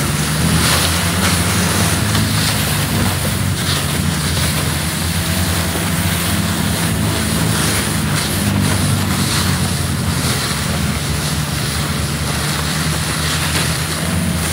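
Snowmobile engine running at a steady speed on the move, with loud wind rush over the microphone.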